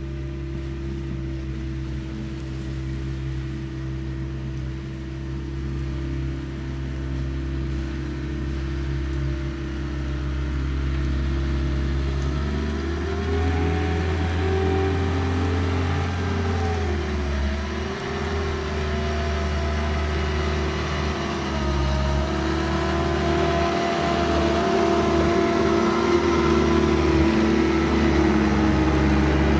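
A compact construction machine's diesel engine runs steadily, then revs up and gets louder about twelve seconds in. Its pitch sags and recovers a few times as the machine works under load.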